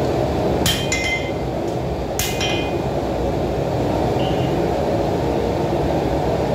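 Two hand-hammer blows on a hot steel knife blade against an anvil, about 0.7 and 2.2 seconds in, each with a short metallic ring. Under them, the gas forge runs with a steady rushing noise.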